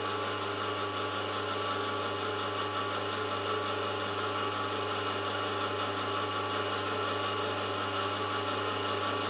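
Warco Super Major milling machine's motor and spindle running steadily, a constant hum with a whine, spinning a dowel held in an ER32 collet while its runout is measured.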